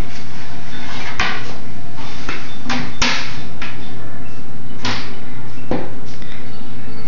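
Doors of a toy kitchen being opened and banged shut: a series of sharp knocks and clacks, the loudest about three seconds in.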